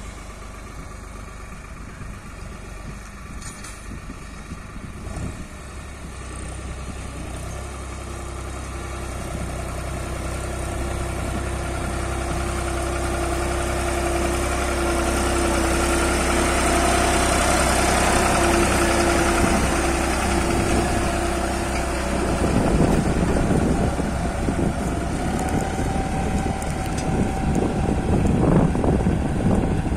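Tractor's diesel engine running steadily as it pulls a tillage implement across the field. It grows louder as it draws near and passes, then turns rougher and more uneven in the last several seconds as it moves off.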